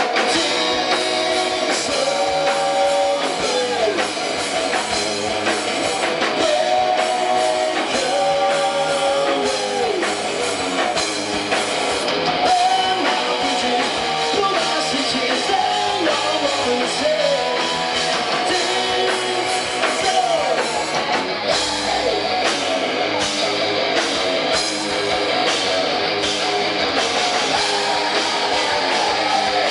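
A rock band playing loud with electric guitar and drum kit, and a lead guitar melody of held, bending notes.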